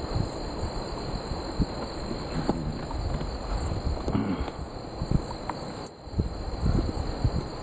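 Night insects chirping in a steady high pulsing trill. Under it, low rustling and a few sharp knocks and clicks as hands and pliers work a tangled fish out of a net.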